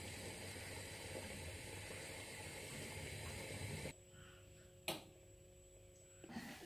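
A steady kitchen hiss with a low hum for about four seconds. It then drops suddenly to quiet room tone, broken by a single sharp click.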